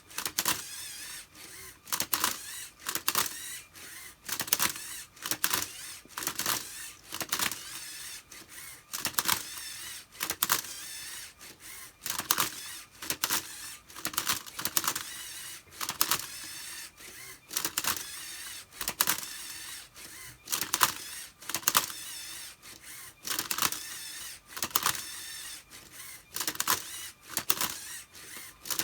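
Lego Mindstorms Robot Inventor MindCuber robot solving a Rubik's Cube: its motors whir and the cube and plastic parts clack in quick groups of clicks, about one group every second, as the cube is turned and flipped move after move.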